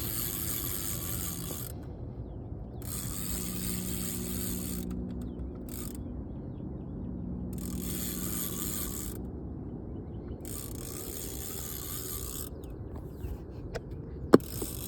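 Fishing reel being cranked in spurts of a second or two with short pauses between, its gears whirring, as a hooked fish is reeled in. A single sharp click near the end.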